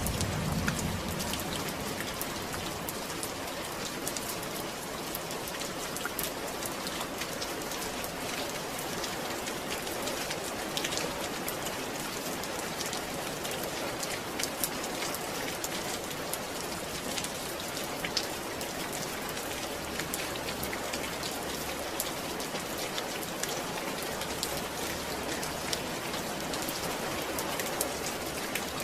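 Steady rain falling, an even hiss dotted with many separate drops ticking on a surface.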